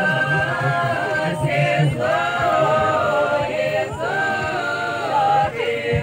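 Voices singing unaccompanied in a slow, chant-like line, holding long notes of about a second each that step up and down in pitch.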